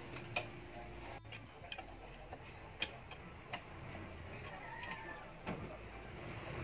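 Irregular sharp metallic clicks and taps, about half a dozen spread over several seconds, from hand tools and parts as stock parts are taken off a motorcycle.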